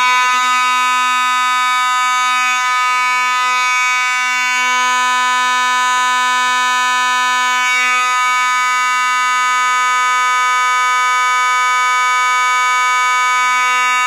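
Faraday (FOS) 6120 fire alarm horn, an electromechanical vibrating horn, sounding continuously on one steady buzzing tone without a break after being set off from a pull station.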